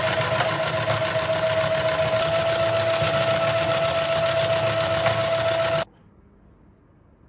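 Toy dinosaur track set's small DC motor and plastic gear-driven escalator, overdriven at 25 volts from a bench power supply, running with a steady high whine over a fast plastic clatter. The sound cuts off suddenly about six seconds in as the power is switched off.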